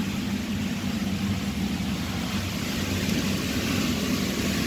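Electric air blower of an inflatable bouncy castle running steadily: a constant motor hum with rushing air.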